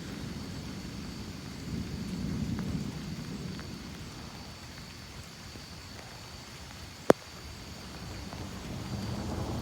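Thunder rumbling low, swelling about two seconds in, easing off, then building again near the end, with rain falling. A single sharp click comes about seven seconds in.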